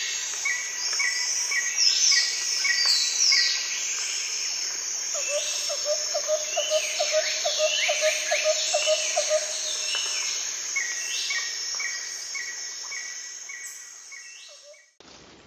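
Forest birds calling over a steady high insect buzz: repeated short high notes, falling whistled calls, and a low pulsed call that runs for several seconds in the middle. The sound fades toward the end.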